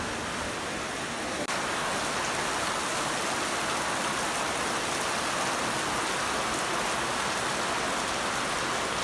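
Rain falling steadily: a dense, even hiss with no let-up.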